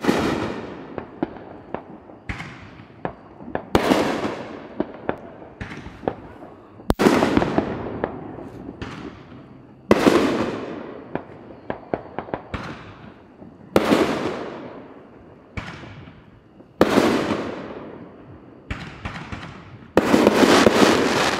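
Aerial fireworks bursting: a loud bang about every three seconds, each followed by a fading rumble, with many smaller sharp pops and crackles between them, and a dense crackling barrage near the end.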